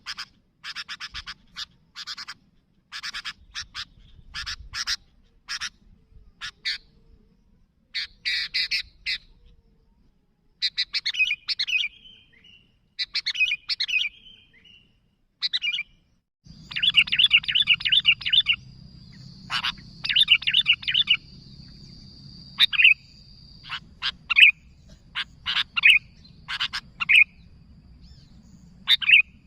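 Sooty-headed bulbul (kutilang) calling: bursts of rapid chattering notes and short chirps, repeated every second or so. About halfway through, a faint steady high tone and a low hum come in under the calls.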